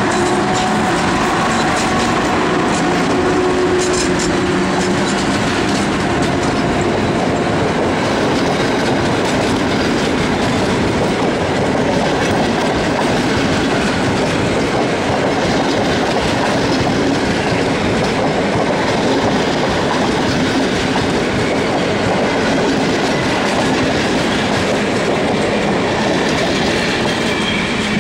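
EP07 electric locomotive and its TLK passenger coaches rolling past while pulling out of the station: a steady rumble of wheels with clickety-clack over the rail joints. A steady hum is heard for the first few seconds as the locomotive goes by, and the noise eases slightly near the end as the last coach passes.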